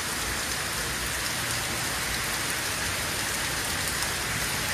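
Heavy rain falling steadily on pavement and trees, an even, continuous hiss.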